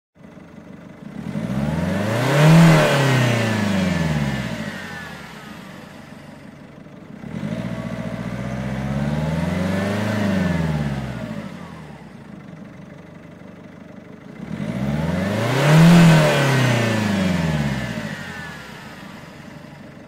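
Car engine idling and revved three times, each rev climbing in pitch and falling back to idle; the first and third revs are sharper and louder, the second slower and softer.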